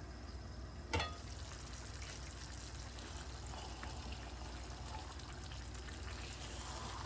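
Vegetable stew sizzling steadily in a pot, with a single sharp knock about a second in.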